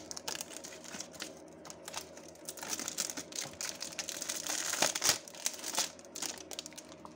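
Clear plastic shrink-wrap being torn and peeled off a DVD case: a crinkling, crackling rustle full of small clicks, busiest and loudest in the middle stretch, from about two and a half to six seconds in.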